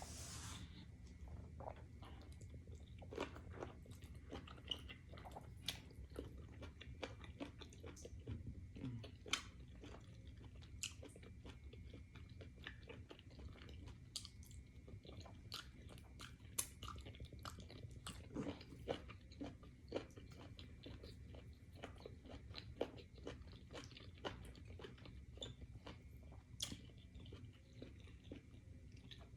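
Faint close-up eating sounds: mouth chewing and smacking on fufu and cow-feet banga soup, a string of short irregular wet clicks that never stops for long.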